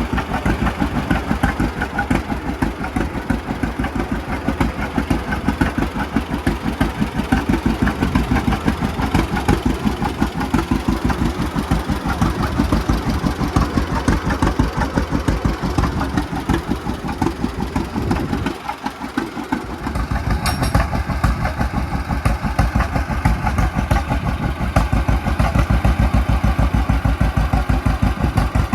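1940 John Deere A's two-cylinder engine running, with a steady, even train of low exhaust beats. It breaks off briefly about two-thirds of the way through, then runs on.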